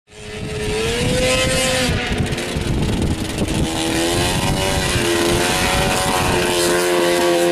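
Snowmobile engine running hard as the sled is ridden across grass, cutting in abruptly; its pitch rises, dips about two seconds in, then holds fairly steady with small rises and falls as the throttle changes.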